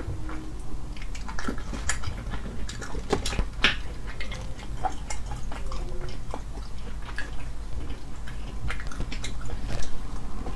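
Close-up mouth sounds of eating sea snails in sauce: wet smacks, sucking and chewing, with irregular sharp clicks as the shells are handled and the meat is picked out with a toothpick.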